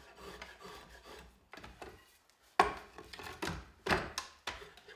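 Draw knife shaving the corners off a hickory axe-handle blank clamped in a shave horse: short scraping cuts, a brief pause, then several louder strokes in the second half.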